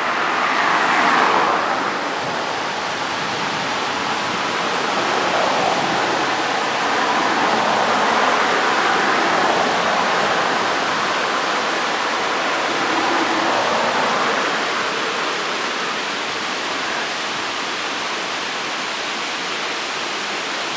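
Steady rush of river whitewater tumbling below a low dam. A car passes close by on the wet bridge road near the start.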